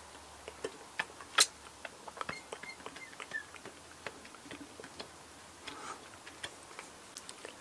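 Mouth sucking on a turbocharger wastegate actuator's vacuum port to draw a vacuum and test its diaphragm: scattered small clicks and lip smacks, with one sharper click about one and a half seconds in.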